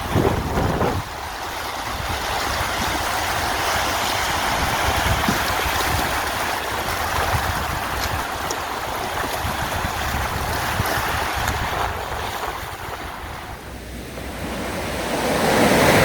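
Sea waves washing on the shore: a continuous wash of surf, easing off briefly and then swelling up as a wave breaks near the end.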